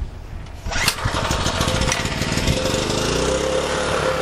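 Small portable generator's single-cylinder engine, fed on HHO (hydrogen-oxygen) gas, being pull-started: a sharp crack about a second in as it fires, then the engine runs steadily.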